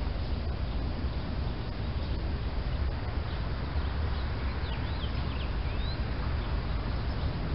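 Steady low outdoor rumble, with a few short, high bird chirps about four seconds in.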